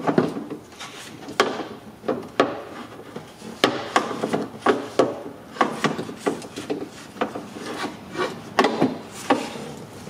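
A new window regulator being worked into a BMW E46 front door: irregular knocks and scraping rubs as metal parts shift and bump against the inside of the steel door shell.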